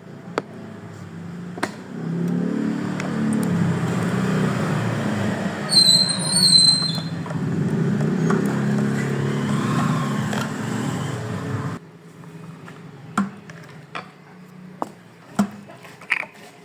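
Sewing machine running steadily for about ten seconds, then stopping abruptly, followed by a few light clicks. Brief high chirps sound about six seconds in.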